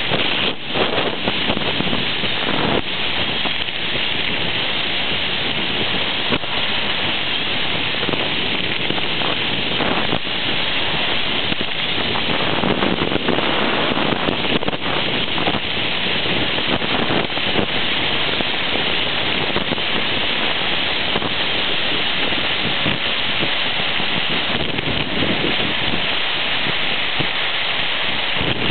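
Steady rushing hiss of skiing downhill: skis sliding and scraping over packed snow, mixed with wind on the microphone.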